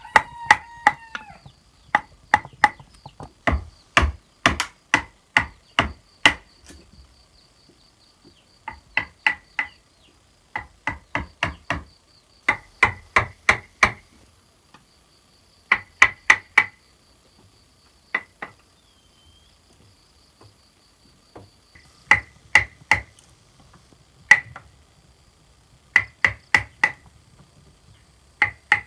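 Hammer driving nails into wood, struck in quick bursts of three to five blows with short pauses between, each blow ringing briefly.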